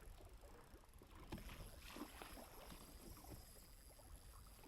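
Faint water lapping and splashing against a boat hull, small irregular slaps over a low rumble of wind and water.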